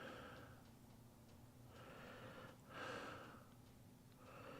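Faint, slow breathing close to the microphone: a few soft breaths in and out, one about every second and a half.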